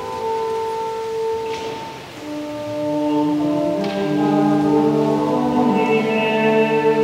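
Church organ playing slow, sustained chords: long held notes that change in steps, thinning briefly about two seconds in, then swelling into a fuller chord.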